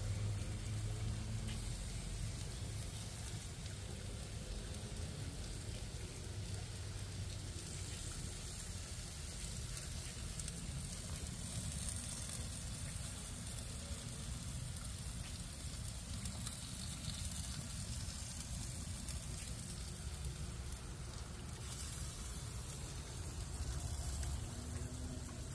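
Whole jerk-seasoned snapper sizzling on the grates of a gas grill: a steady hiss with a low rumble underneath.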